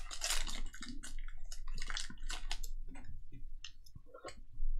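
Foil wrapper of a Panini Donruss basketball card pack being torn open and crumpled by hand: a quick run of crinkling crackles, loudest in the first second, thinning out later.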